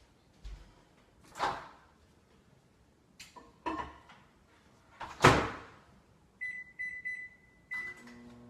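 Microwave oven being loaded and started: a few knocks and a loud door slam about five seconds in, then a quick series of keypad beeps, and the oven's low hum starting up near the end.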